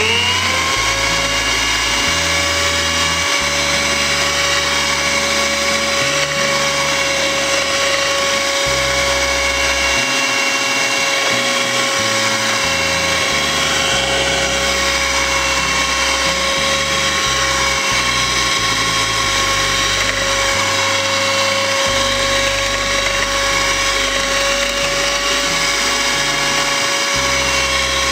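Electric hand mixer creaming butter as sugar is added. Its motor spins up with a rising whine at the start, then runs at a steady high pitch.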